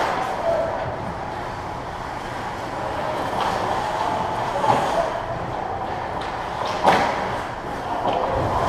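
Ice hockey play: a steady scraping hiss of skates on the ice under the rink's hum, with a few sharp clacks of hockey sticks and puck. The loudest clack comes about seven seconds in.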